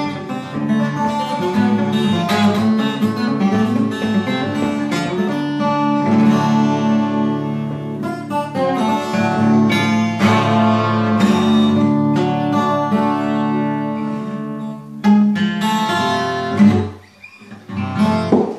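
Twelve-string acoustic guitar played solo, with its bright doubled-string twang. The playing runs on steadily, then ends with a few last ringing chords in the final few seconds.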